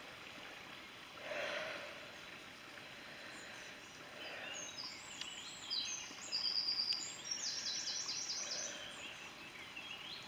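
A small songbird singing a run of quick, high notes from about four to eight and a half seconds in, over the faint steady wash of a shallow stream running over stones.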